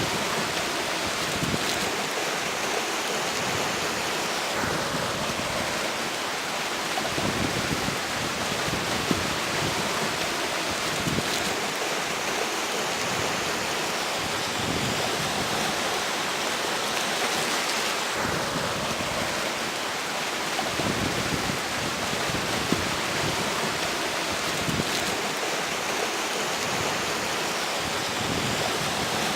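River water rushing steadily while a strong wind blows in gusts, with irregular low rumbles of wind buffeting the microphone.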